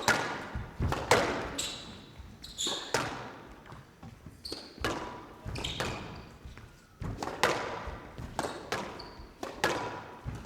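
Squash rally: the ball is struck by rackets and smacks off the court walls, a run of sharp, echoing hits one or two a second. Short high squeaks of court shoes on the floor come between the hits.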